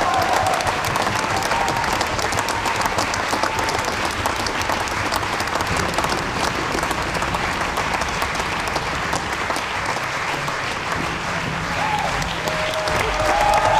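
Theatre audience applauding steadily, with a few voices calling out at the very start and again near the end.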